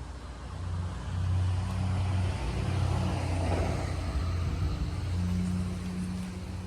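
A motor vehicle running, with a low engine hum; the sound grows about a second in, swells through the middle and eases off toward the end.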